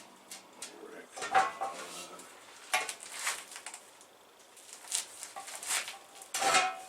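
Metal parts being handled on a workbench: a run of separate knocks and clinks, the strongest near the end, some ringing briefly.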